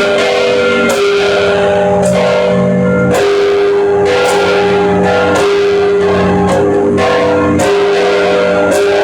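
Church bells of St John's Co-Cathedral ringing: several bells of different pitch struck in turn, about one to two strokes a second, each stroke ringing on and overlapping the next.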